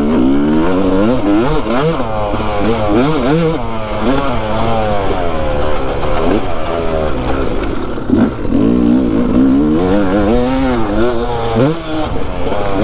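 2020 Yamaha YZ250's single-cylinder two-stroke engine revving up and down as the dirt bike is ridden, its pitch rising and falling every second or so.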